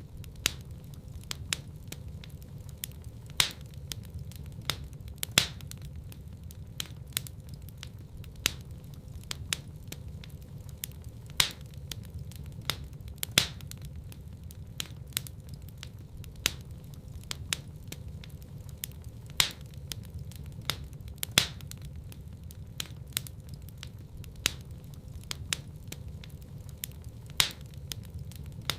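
Wood fire crackling in a fireplace: frequent sharp snaps and a few louder pops over a low, steady rumble.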